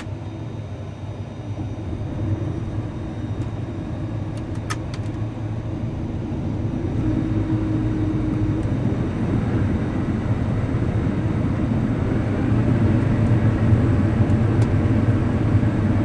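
A vehicle's engine running with a steady low rumble that grows gradually louder.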